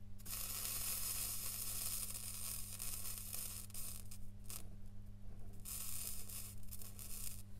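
Flux sizzling under a T12 soldering iron's tip as it is dragged along a row of SMD chip pins, in three stretches: a long one of about three and a half seconds, a short one about four seconds in, and another of nearly two seconds near the end. A steady low hum runs underneath.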